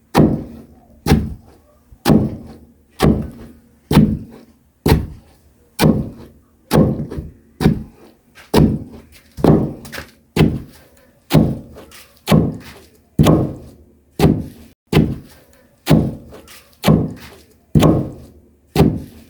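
Banana leaves and stems being pounded for chicken feed: a steady run of heavy thuds, about one a second, each with a sharp knock on top. The pounding stops near the end.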